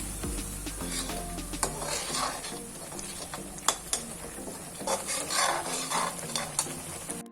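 Spatula stirring and scraping a masala of tomato and ginger-garlic paste with ground spices as it fries in oil in a kadhai: a soft sizzle, with scattered sharp clicks of the spatula against the pan.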